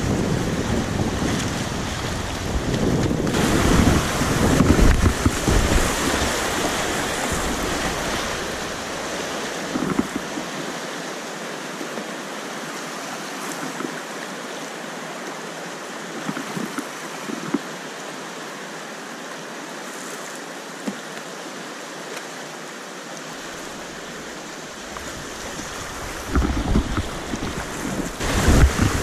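Rushing whitewater of river rapids, a steady hiss of moving water heard from water level. Low wind buffeting on the microphone is mixed in through about the first ten seconds and again near the end.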